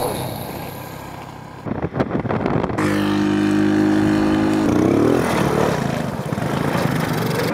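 Honda C90 motorcycle's small single-cylinder four-stroke engine in quick cuts: after the fading tail of an explosion effect, it runs at a steady note and then revs up with a quick rise in pitch about five seconds in.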